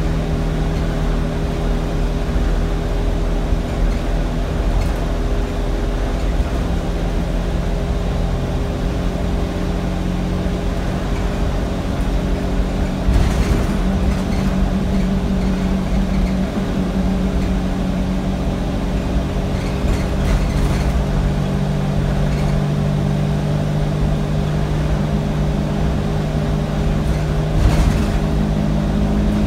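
Diesel engine of an Alexander Dennis Enviro200 single-decker bus pulling along, heard from inside the cabin: a steady drone whose pitch shifts a few times as the revs change. Several brief knocks and rattles sound from the bodywork, the clearest about halfway through and near the end.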